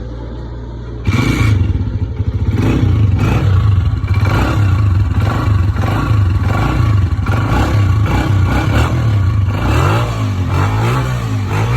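125 cc motorcycle engine running, getting louder sharply about a second in, then revved in repeated blips, with rising and falling revs near the end.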